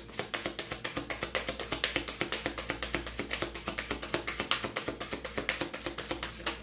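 A tarot deck being shuffled by hand: a fast, even run of card slaps, about eight a second, that stops suddenly near the end. Soft background music plays underneath.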